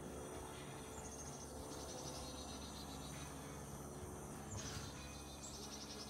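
Faint outdoor ambience: a low steady hum with several short, high-pitched chirping trills a second or more apart, each a quick run of pulses.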